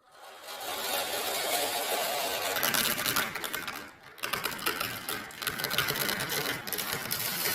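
Marbles rolling and clattering down a rain-gutter marble run: a dense, fast rattle of many small clicks. It builds over the first second, dies down briefly about four seconds in, then picks up again.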